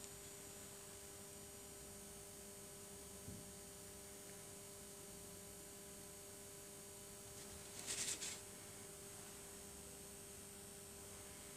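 Steady electrical mains hum, with a soft thump a little after three seconds and a short scratchy rustle of several quick strokes about eight seconds in.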